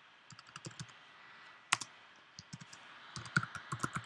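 Typing on a computer keyboard: a few scattered keystrokes, one louder stroke near the middle, then a quicker run of keys near the end.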